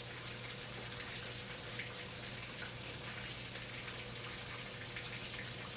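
Steady low background hiss with a faint hum, and a few faint soft ticks; no clear sound event stands out.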